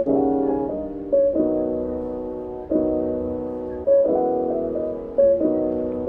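Background music: piano chords, a new chord struck every second or so and fading away before the next.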